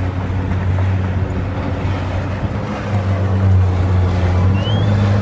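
A motorboat engine running steadily nearby, a low hum that dips briefly partway through, over a steady rushing noise of wind and water.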